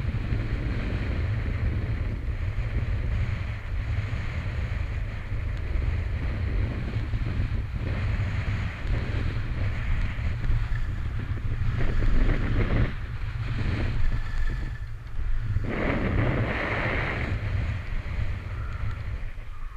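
Wind buffeting the microphone in a steady low rumble while riding down packed, groomed snow, with the scrape and hiss of the board over the snow swelling louder about twelve seconds in and again around sixteen to seventeen seconds.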